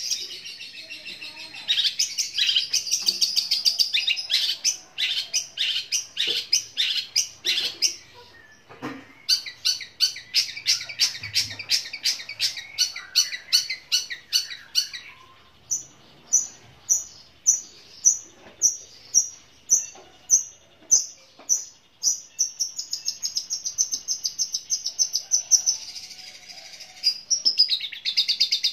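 Caged long-tailed shrike (cendet) singing loud and long, with rapid high chirps that mimic the Eurasian tree sparrow. Midway it switches to an evenly spaced run of single high notes, about one and a half a second, then goes back to dense chirping near the end.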